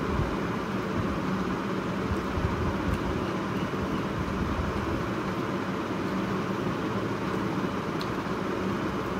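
Steady low rumbling background noise that holds even throughout, with a couple of faint clicks.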